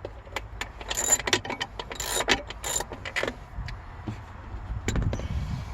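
Metal hand tools clinking and rattling in quick, irregular clusters as a 10mm socket and spanner are handled on a battery clamp bolt, with a few low knocks near the end.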